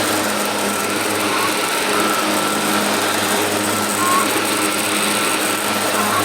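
Sun Joe electric hover lawnmower running steadily: an even motor hum with a higher whine over the rushing air of its fan. A few faint short chirps sound above it.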